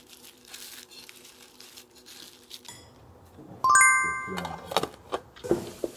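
A bright bell-like chime rings out about three and a half seconds in and fades over about half a second, after a softer steady tone.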